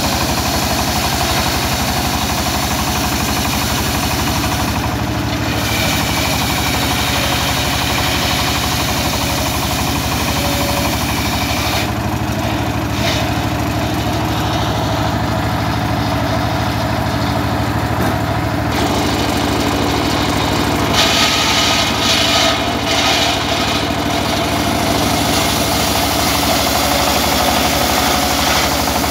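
Home-built circular saw rig driven by a single-cylinder diesel engine, running steadily while timber is fed through the blade. The cutting noise rises and falls as boards go through, loudest about three-quarters of the way in.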